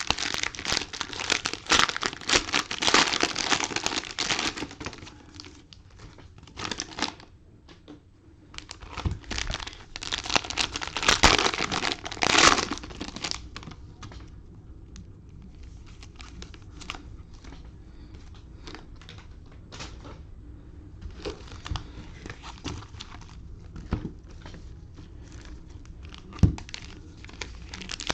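Plastic wrapping on a box of trading-card cello packs crinkling and tearing in loud bursts during the first dozen seconds or so, then softer rustling with a few sharp taps.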